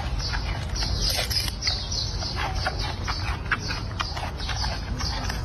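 Giant panda chewing and crunching a bamboo shoot: crisp, irregular cracks and snaps several times a second over a low steady rumble.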